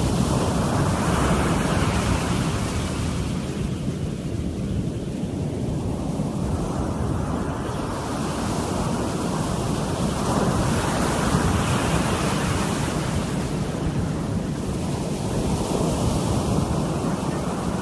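Sea surf washing in and out: a continuous rushing that swells and fades over several seconds, over a low rumble.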